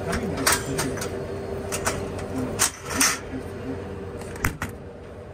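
Sharp clicks and clunks as a glass Coca-Cola bottle is worked loose and pulled from the vertical bottle rack of an old-style Coca-Cola bottle vending machine, over a steady hum. About seven knocks, the last a single sharp clack near the end.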